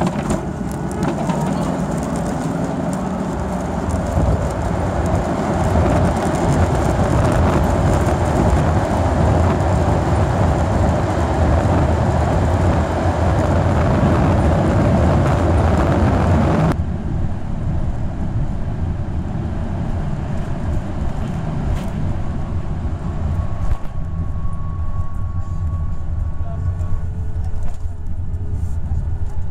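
Boeing 737-800's CFM56 engines in reverse thrust during the landing rollout, heard inside the cabin. A loud roar builds over the first few seconds, then drops sharply about seventeen seconds in to a lower rumble as the plane slows on the runway.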